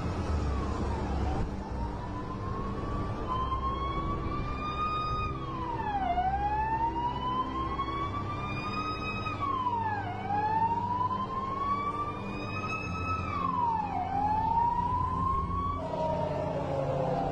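Warning siren wailing. Its pitch climbs slowly for about three seconds, then drops quickly, over and over, about four times. Near the end a second, lower siren sliding down in pitch takes over.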